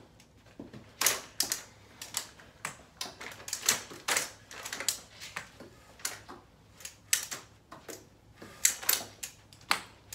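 Irregular sharp taps and clacks on a hard floor, a few a second, from an aluminium walker and a walking cane being set down and shifted as two people shuffle.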